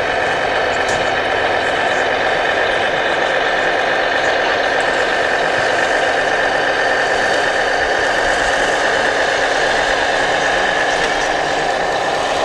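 Electronic sound unit in a radio-controlled scale truck, playing a steady diesel engine running sound through its small speaker.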